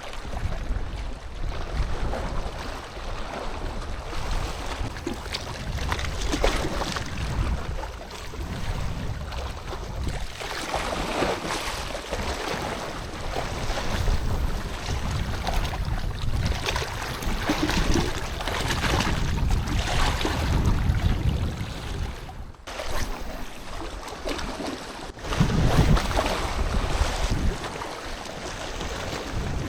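Sea waves washing in and wind buffeting the microphone, a rumbling, swelling rush of noise that cuts out briefly twice near the end.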